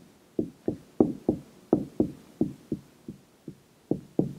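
Dry-erase marker writing on a whiteboard: a quick series of short taps, about three a second, one for each pen stroke.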